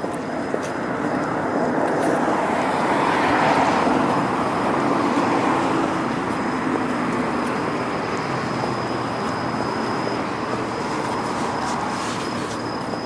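Road traffic: a car passing on the road, swelling about two seconds in and easing off by about six seconds, then a steady hum of traffic.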